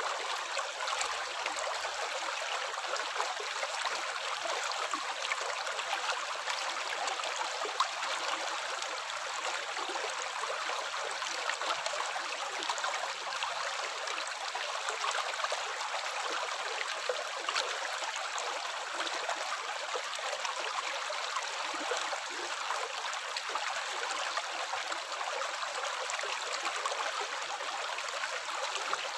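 Water running steadily: an even, continuous splashing rush.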